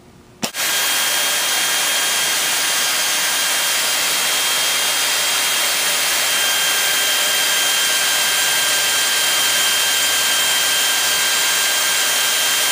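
ITPF03 feed-assist pneumatic drill motor, a 1000 RPM drill, starting with a click about half a second in, then running steadily with a loud hiss and a steady whine as it drills a number 10 hole in titanium. The whine grows stronger about six seconds in.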